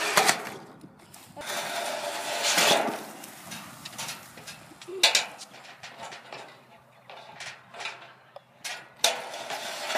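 Skateboard riding: wheels rolling on pavement with sharp clacks and knocks of the board, one about five seconds in and another about nine seconds in.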